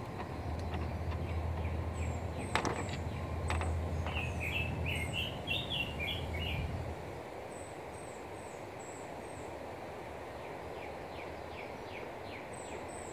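Songbirds calling and singing over a steady outdoor hiss: high thin chirps recur throughout, a short warbled phrase comes about four seconds in, and a run of quick falling notes comes near the end. A low hum underneath stops about seven seconds in, and two sharp clicks sound between two and four seconds in.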